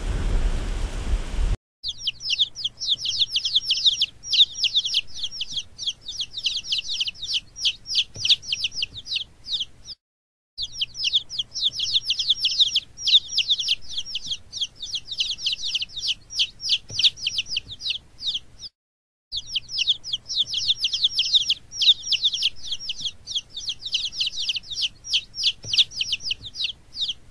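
A brood of baby chicks peeping nonstop, many high-pitched peeps overlapping several times a second, in three long stretches broken by two brief gaps. It opens with about a second and a half of rushing noise with a deep rumble that cuts off before the peeping starts.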